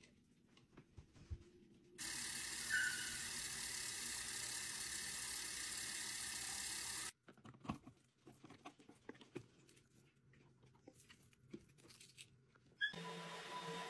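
Tap water running steadily into the clear plastic clean-water tank of a wet-dry vacuum mop for about five seconds, then cutting off, between light clicks and knocks of the plastic parts being handled. Music comes in near the end.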